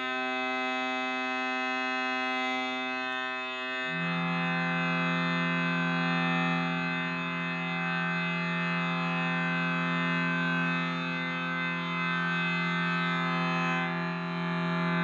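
Large shruti box, a bellows-pumped free-reed drone box tuned to 432 Hz, sounding a steady reedy drone. About four seconds in, a lower note joins and thickens the chord.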